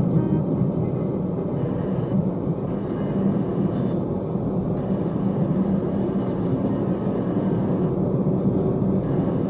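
Steady road noise of a car driving, heard from inside the cabin: an even rumble of tyres and engine at a constant speed.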